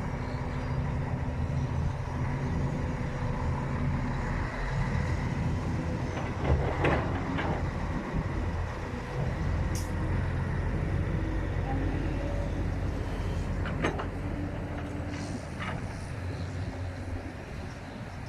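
Heavy diesel earthmoving machinery, an excavator working beside a dump truck, running steadily with a low engine drone. Short knocks and clatters come about a third of the way in and again around three-quarters through.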